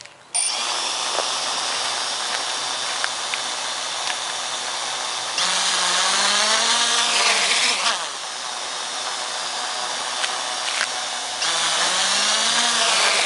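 Quadcopter's four brushless motors (Multistar 2213 935kv on AFRO 20A ESCs) start spinning about a third of a second in with a steady whine. Twice they are throttled up for takeoff, louder, with a pitch that rises and wavers for about two seconds before dropping back.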